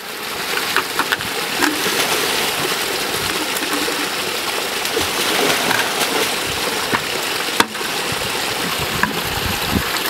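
Creek water pouring steadily out of a large cement pipe and splashing into a shallow pool, a flow of about 100 gallons a minute. A single sharp click about seven and a half seconds in.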